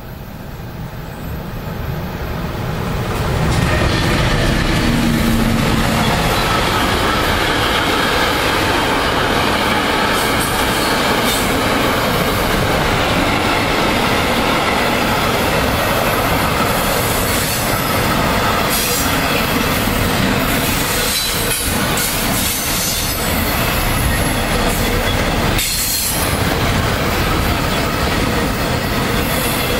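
Long intermodal freight train of container and semitrailer wagons passing close by, growing louder over the first few seconds as it arrives, then a steady loud rumble of wagons rolling past with rail clatter and the squeal of wheels.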